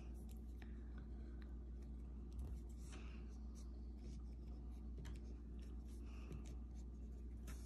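The tip of a small knife scratching and scoring a design into a pumpkin's skin: faint, irregular scraping with light ticks, over a low steady hum.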